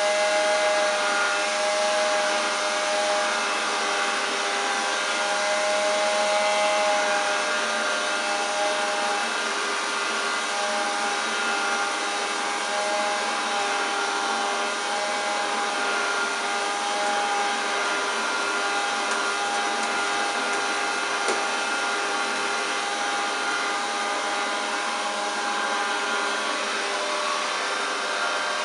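1935 Hoover Junior 375 vacuum cleaner running with its hose attachment: a steady motor whine over a rush of air, with the pitch wavering slightly.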